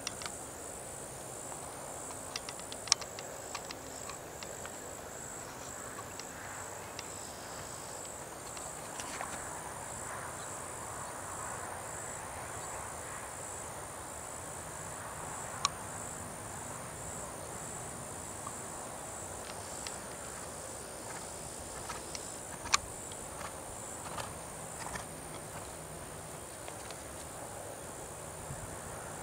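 Steady high-pitched insect chorus, a continuous pulsing trill, with a few sharp isolated clicks scattered through it.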